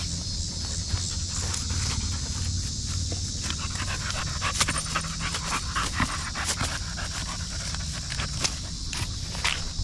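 Dog panting steadily, with short scattered clicks and taps over it.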